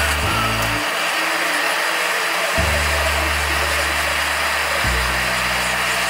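Gas torch flame hissing steadily as it plays on a padlock, under background music with bass notes that change every couple of seconds.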